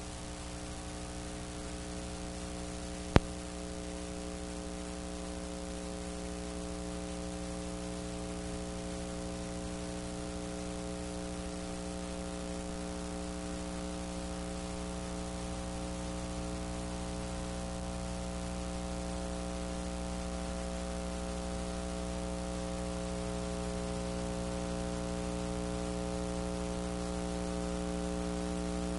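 Steady electrical mains hum with a stack of overtones over a constant hiss, the kind of noise a blank stretch of analog videotape gives off; it grows slightly louder. One sharp click comes about three seconds in.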